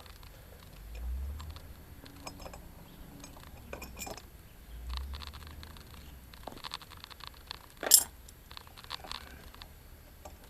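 Light metallic clinks and scrapes of bolts and hand tools being handled as bolts are taken out of a wheeled string trimmer's attachment plate. A sharp click about eight seconds in is the loudest sound, with a couple of dull low bumps earlier.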